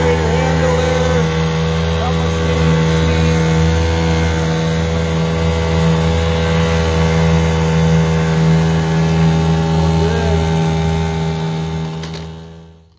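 Outboard motor running steadily as the boat moves under way, fading out near the end.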